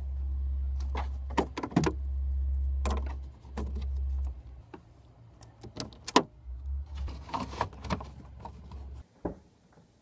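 Clicks and small metallic knocks from the battery terminal clamp being worked by hand and tool in the trunk of a 2001 BMW 325i, as the battery is reconnected. The loudest knock comes about six seconds in, over a low rumble that comes and goes and stops near the end.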